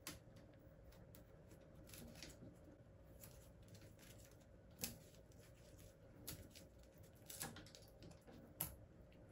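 Faint, scattered clicks and light rustling of hands handling cables and wires against an electric scooter's handlebar stem and clamp, with a few sharper clicks about five seconds in and near the end.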